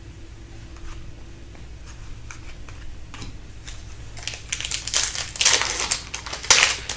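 Hockey trading cards and their pack wrappers being handled: light scattered clicks, then louder rustling and crinkling starting about four seconds in.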